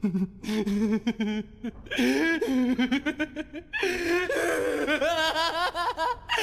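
A man's voice-acted laughter. It starts as low, choppy chuckles and builds over a few seconds into higher-pitched, sustained laughing.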